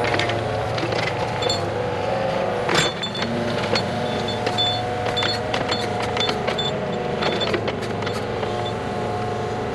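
Engine of a digging machine running steadily, with frequent clanks and knocks as stone and metal strike; the sharpest knock comes about three seconds in.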